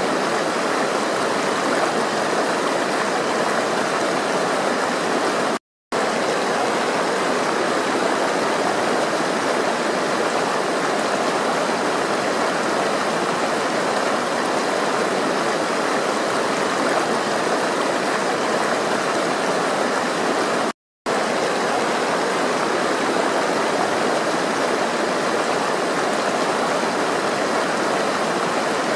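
Steady rushing of flowing water, an even wash of sound without pauses. It cuts out completely for a split second twice, about six seconds in and about twenty-one seconds in.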